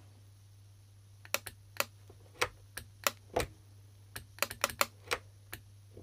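Xiaomi Aqara no-neutral ('fire wire') smart wall switch's push panel pressed over and over: about a dozen sharp clicks, irregularly spaced and some in quick pairs, starting about a second in. The switch is being tested to see whether it will turn the light on.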